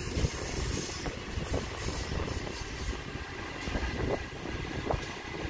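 Sydney Trains Waratah electric train passing, a steady low rumble of wheels on the track with a few short knocks.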